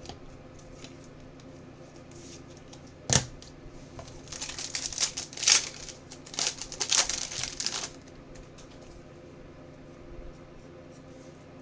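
Trading cards and their plastic packaging being handled, with crinkling and rustling for a few seconds after a sharp click about three seconds in.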